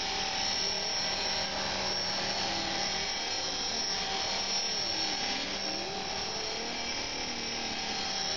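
Electric belt-drive collective-pitch RC helicopter in flight: a steady whine from its motor and rotors, with the pitch wavering up and down for a few seconds in the middle.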